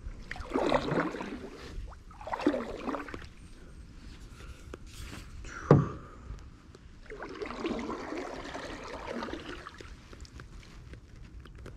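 Double-bladed paddle strokes in the water beside a metal canoe: swishing and splashing in three spells, with a single sharp knock just before the six-second mark.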